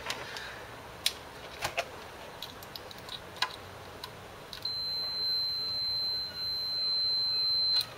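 Digital multimeter's continuity buzzer giving one steady high-pitched beep for about three seconds, starting a little past halfway, as the test probes are held across a resistor on the CD player's circuit board. Before it come a few light clicks of the probe tips tapping the board.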